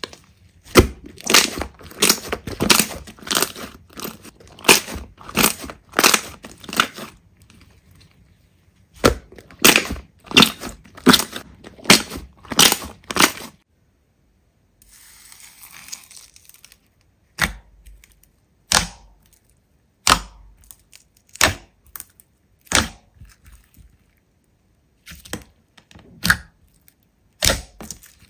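Slime being pressed and squeezed by hand, making a run of sharp pops and crackles. The pops come in quick clusters at first, then after a short soft hiss they come singly, about one a second.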